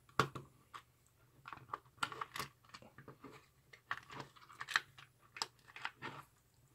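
Irregular small clicks and taps of a Phillips screwdriver, small screws and fingers working on the plastic case of a handheld component tester as it is unscrewed and opened.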